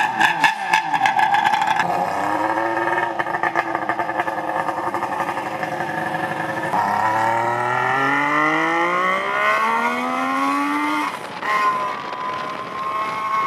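Kawasaki KH250 air-cooled three-cylinder two-stroke engine through a collector exhaust, running with a rough, crackling exhaust note at first, then pulling away with the revs climbing for about four seconds. The revs drop sharply at a gear change about eleven seconds in, then it carries on at a steadier pitch.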